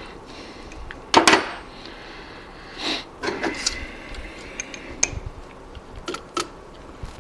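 Metal hand tools and a steel rule clinking and tapping against the lathe's tool post and carriage: a few sharp metallic clicks and knocks, the loudest about a second in.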